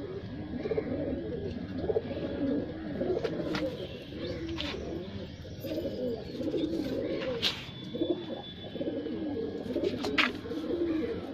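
Several racing homer pigeons cooing continuously, their low calls overlapping, with a few short sharp clicks in between.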